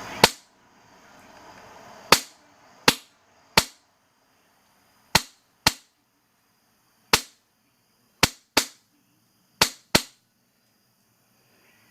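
Wolverine Inferno HPA airsoft gun firing single shots: about eleven sharp cracks at uneven intervals, some in quick pairs half a second apart, others up to two seconds apart.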